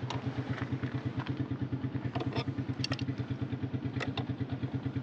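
Motorcycle engine idling with an even, rapid pulsing beat, with a few light metallic clicks on top.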